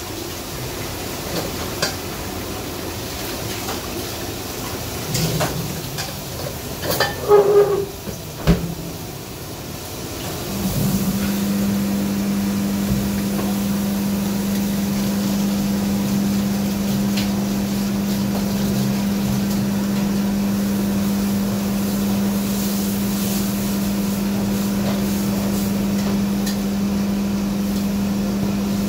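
Kitchen clatter of pots and utensils, with a few sharp knocks. About ten seconds in, a steady electric machine hum starts and carries on.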